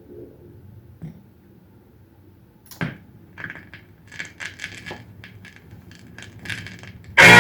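A run of light, irregular metallic clinks and clatters, as of small metal objects being handled and set down. Music starts loudly near the end.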